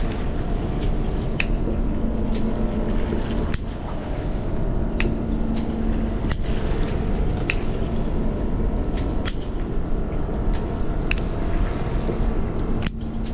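Water sloshing and lapping against a fishing boat's hull over a steady low hum, with short sharp clicks about once a second.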